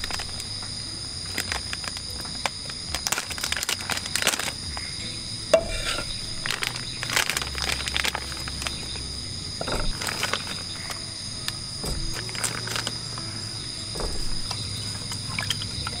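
A steady, high-pitched chorus of rainforest insects such as crickets, with scattered clicks and knocks throughout.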